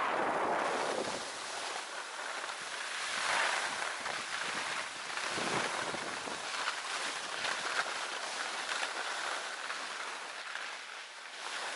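Hiss and scrape of a board sliding over packed snow, swelling and fading as it turns, with wind rushing over the microphone.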